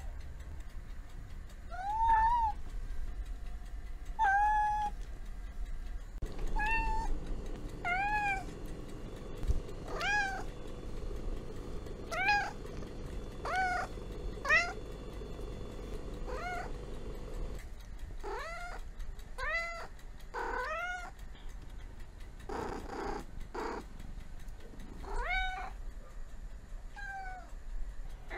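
Domestic cat meowing over and over, about one call a second, each meow rising and then falling in pitch.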